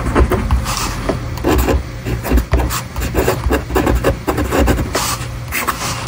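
Ballpoint pen writing on paper, close up: a run of short, irregular scratchy strokes, with a longer stroke near the end as a word is underlined.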